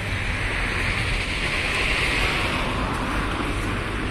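Street traffic: a passing car's tyre noise swells to its loudest about halfway through and then fades, over a low steady rumble.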